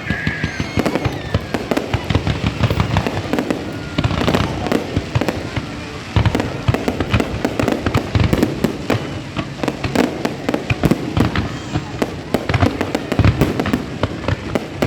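Fireworks going off in rapid succession: dense crackling bangs over deeper booms, with no pause.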